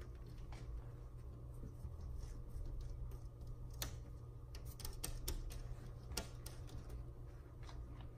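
Cat claws tapping and scratching at a window pane: irregular light clicks, a few sharper ones in the middle, over a steady low hum.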